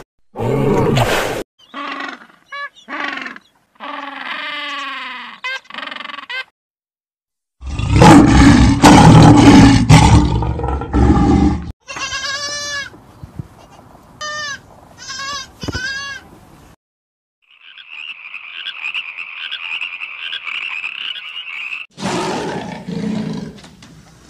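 A series of different animal calls played one after another with short silences between them: short pitched cries, a very loud rough call in the middle, a run of repeated high calls, and a long steady high buzz near the end.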